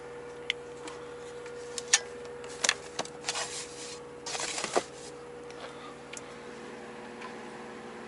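Hands moving and setting down objects in a truck sleeper cab's storage cubby: a scattering of small clicks and knocks with two short spells of rustling, over a steady hum.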